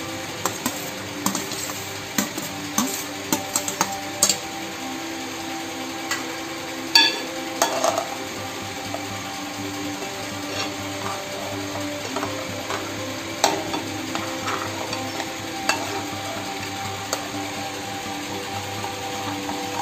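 A spoon scraping and clinking against a bronze uruli as cooked rice ada is scraped off a steel plate into boiling coconut milk and stirred, with scattered sharp taps over a steady background hum.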